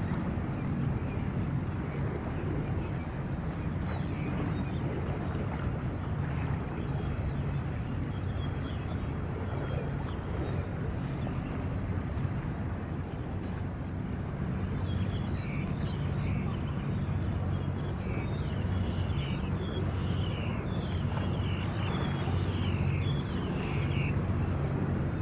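Steady low drone of boat engines across the harbour water, mixed with wind noise on the microphone. Faint high chirps come through over the second half.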